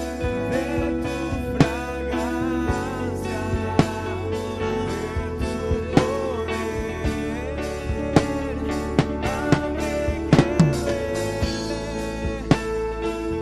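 Worship music with guitar, sustained notes and a steady drum beat, with a bending melody line that may be singing or a slide guitar.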